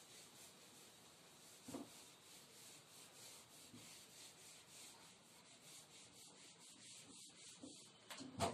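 Whiteboard eraser rubbing back and forth over a whiteboard in quick strokes, several a second, faint. A single soft knock a little under two seconds in.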